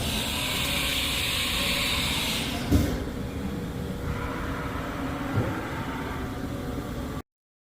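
Haas VF-3 vertical machining center under power: a steady machine hum with a hiss over the first two and a half seconds, then a clunk just before the third second and a lighter knock about two and a half seconds later. The sound cuts off abruptly near the end.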